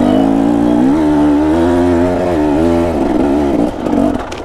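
Two-stroke enduro motorcycle engine held at high revs under load, its pitch steady for about three seconds, then dropping and wavering up and down near the end.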